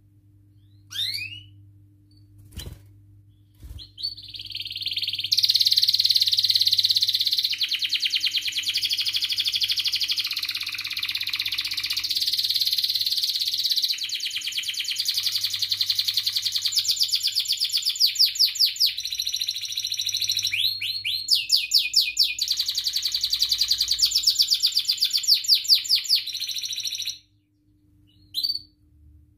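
Domestic canary singing a long, unbroken song of fast trills and rolling phrases, switching to a new phrase every few seconds, after a couple of short opening chirps; the song stops abruptly near the end, followed by two brief chirps. A faint steady low hum runs underneath.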